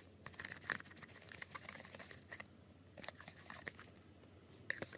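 Freshly activated slime being stirred and lifted with a plastic spatula in a plastic cup: faint, irregular clicks and crackles, with a few sharper clicks.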